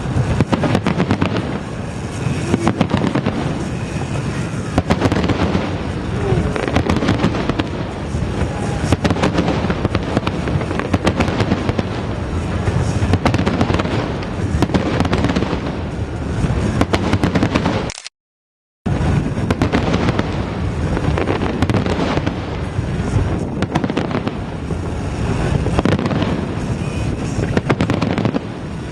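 Fireworks display at its height: a dense, unbroken run of bursts, cracks and booms with music underneath. The sound cuts out completely for under a second about two-thirds of the way through, then the barrage carries on.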